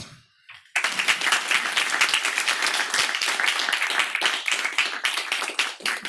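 Audience applauding, beginning abruptly about a second in.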